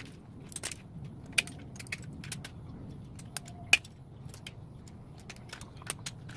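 Irregular small clicks and light taps, as of small hard parts and tools being handled, over a low steady hum.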